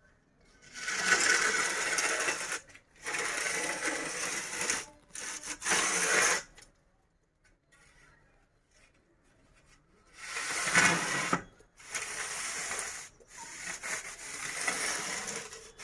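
Repeated rough scraping strokes in block-laying work, each lasting a second or two, with a pause of a few seconds about halfway through.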